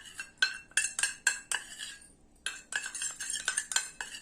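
A teaspoon stirring honey into ginger juice, clinking repeatedly against the side of its container about three times a second, with a short pause about two seconds in.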